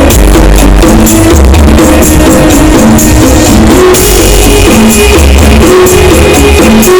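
Very loud electronic dance music from a 'sound horeg' street sound system, with a heavy pulsing bass and a stepping synth melody.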